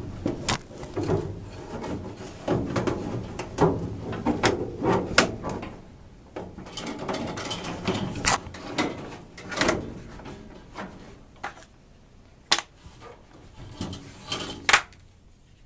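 Handling noises of something being worked into place: a busy run of scrapes, knocks and rattles, thinning out after about ten seconds to a few sharp clicks near the end.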